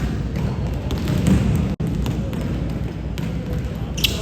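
Basketball being dribbled and bouncing on an indoor court during a game, over a steady low rumble of the gym. The audio drops out for an instant about two seconds in.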